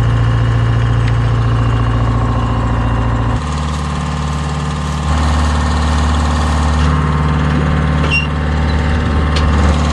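Tractor engine idling steadily, its hum changing note about three and a half seconds in.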